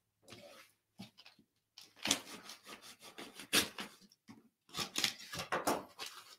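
Cardboard and paper packaging being handled and opened: irregular rustling, scraping and small clicks, mostly from about two seconds in.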